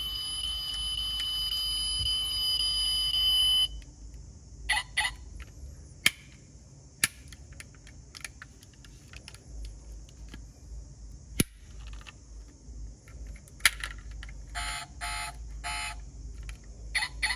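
A steady high electronic tone runs for the first three and a half seconds, then cuts off suddenly. After it come scattered sharp clicks as the small opening doors of a die-cast Rolls-Royce Phantom model car are swung open and snapped shut, with a quick run of clicks near the end.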